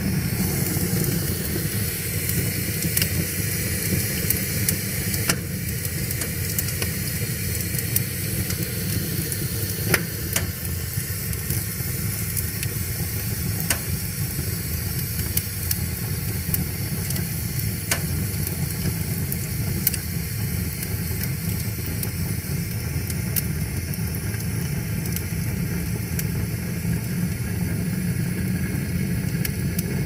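Wood fire of split logs burning in a metal fire pit: a steady low rush of flames with a hiss, broken by scattered sharp crackles and pops, the loudest about ten seconds in.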